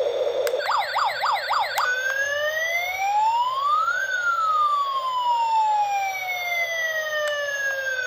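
Toy fire truck's built-in electronic siren. It gives a fast warbling yelp for about a second, then switches to a slow wail that rises for about two seconds, falls for about four, and starts to rise again at the end.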